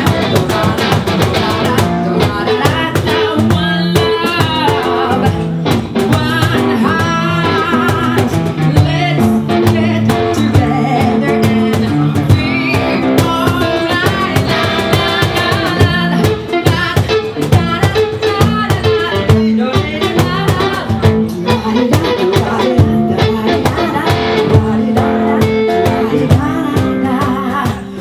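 Live acoustic band: a woman singing a wavering melody over a cajon beaten in a busy rhythm and a plucked guitar.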